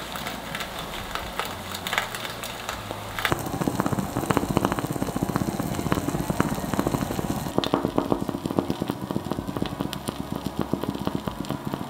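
Trangia mess tin cooking rice over a burning Esbit solid-fuel tablet: rapid, irregular crackling and sputtering that grows denser about three seconds in.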